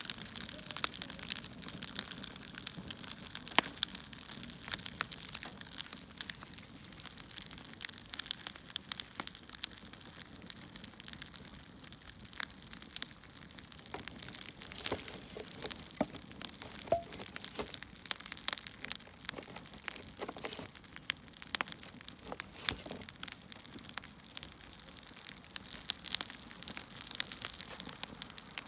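Firewood burning: a steady hiss with many irregular crackles and sharp pops from the burning wood.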